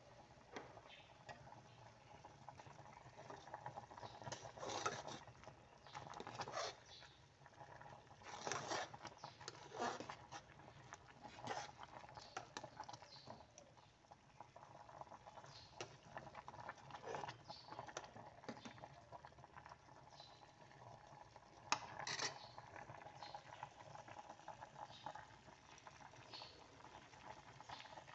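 Vegetable stew bubbling at a rolling boil in an aluminium pot. A metal ladle clinks and scrapes against the pot now and then as it is stirred, with the sharpest knock about 22 seconds in.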